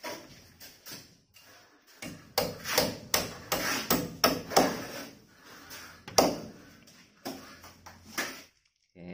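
Hammer nailing the metal fixing lugs of an aluminium window frame into the wall: a run of irregular, sharp blows with a light metallic ring, the loudest ones in the middle.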